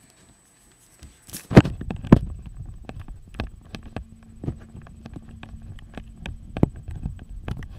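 Handling noise on the camera's microphone: a few loud thumps, then a run of small irregular clicks and knocks over a low rumble.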